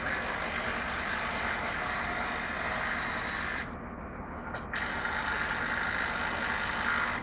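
Cordless impact wrench driving bolts in two long runs, the first lasting about three and a half seconds and the second, after a pause of about a second, lasting about two and a half seconds. An engine runs steadily underneath.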